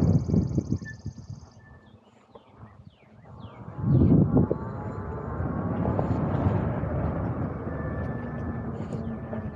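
Wind rushing and buffeting over the camera microphone on a moving electric bike. It drops away briefly about two seconds in, then gusts loud again about four seconds in. Small birds chirp in the background throughout.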